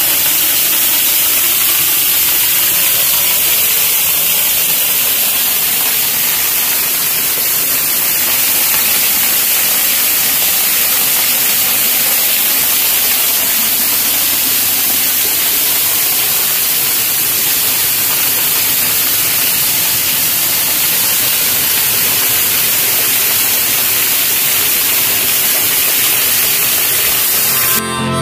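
Waterfall heard from just behind its falling curtain of water: a loud, steady rushing hiss of spray and plunging water.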